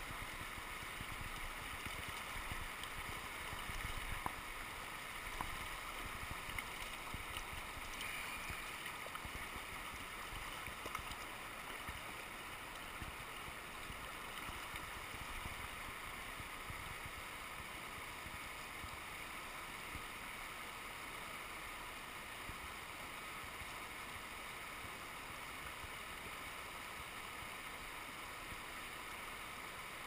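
Steady rushing of a shallow mountain river running over rocks and small cascades, with a few faint ticks in the first ten seconds.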